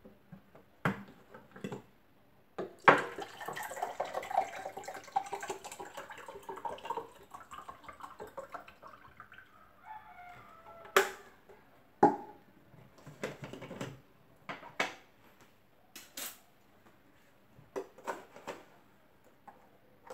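Jars and a plastic container being handled on a kitchen counter: scattered sharp knocks as they are picked up and set down, with a few seconds of busier clatter and rustling starting about three seconds in.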